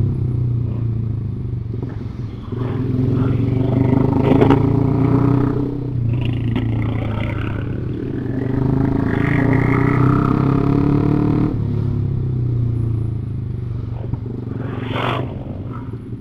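Motorcycle engine running steadily while riding on a road, its note shifting a little with the throttle.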